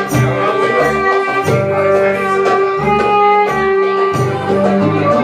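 Live Middle Eastern band music: a violin playing held melody notes over plucked strings and bass guitar, with a steady hand-drum and jingle beat.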